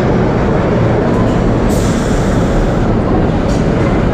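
1930s BMT Standard subway train running, a loud steady rumble of wheels and motors, with a short hiss of air about two seconds in.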